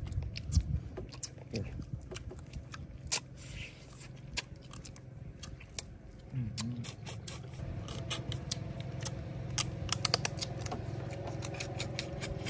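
People eating steamed duck: chewing, with many scattered short clicks and scrapes over a low steady hum. There is a brief low murmur about six seconds in.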